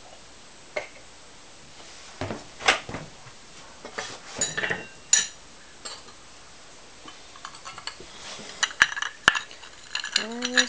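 Glaze-fired ceramic bowls clinking and knocking as they are lifted out of an electric kiln. The clinks come in scattered ones and twos, then a busier run of clinks near the end.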